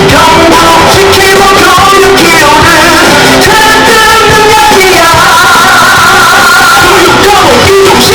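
Loud election campaign song: a sung melody over a dense pop backing track.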